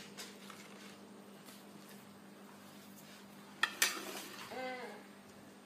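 A quiet room with a low steady hum. About three and a half seconds in come two sharp clicks in quick succession, then a young child's short vocal sound, a brief rising-and-falling note.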